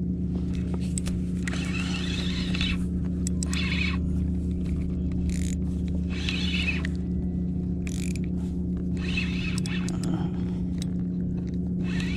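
A steady low hum, with five short scraping, rubbing bursts of hand and rod-and-reel handling noise close to the microphone as the angler works a spinning rod.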